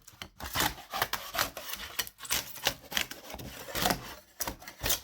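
Irregular rubbing and scraping strokes, a few a second, uneven in loudness.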